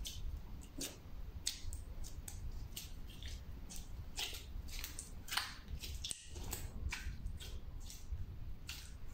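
Pink slime squeezed and kneaded by hand, giving a string of small, irregular wet pops and crackles.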